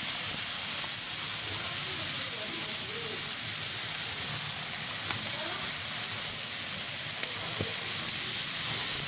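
Whole head-on prawns sizzling on a hot ridged grill plate, a steady hiss of their juices cooking.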